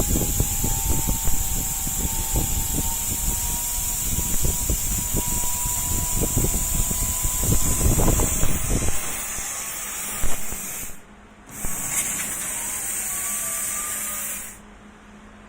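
1325 CNC laser cutting machine running: a steady high hiss with a faint motor whine slowly gliding up in pitch, over irregular low rumbling during the first half. The sound cuts out abruptly about eleven seconds in and again near the end.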